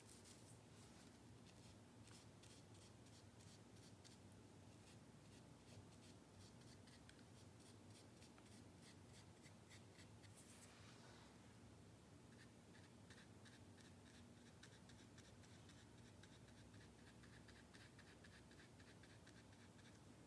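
Faint scratching of a paintbrush stroked across watercolour paper, many short quick strokes, over quiet room tone.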